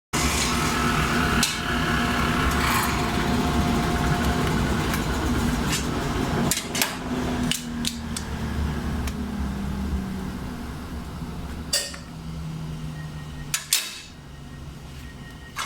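Grizzly table saw running steadily, then slowing and fading over the last several seconds as it winds down, its tone sinking. Scattered sharp knocks and clacks from the cut strips being handled.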